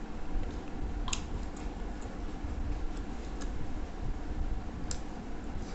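Eating sounds from a person eating rice and curries with her bare hand: soft chewing and hand-mixing on the plate, with three short sharp clicks spread through, over a steady low hum.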